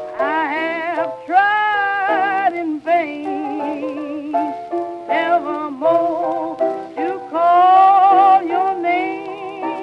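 Blues music: a lead melody of long held notes with wide vibrato over a steady piano accompaniment.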